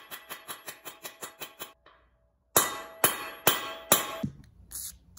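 Hammer tapping on the U-joint yoke of a Chevy Colorado driveshaft to drive out the U-joint bearing caps without a press: a quick run of light taps, then after a short pause four harder strikes about half a second apart, each leaving the metal ringing.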